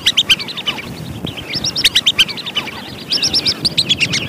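Wandering whistling ducks calling: rapid series of short, high whistled notes, several a second, in repeated bursts.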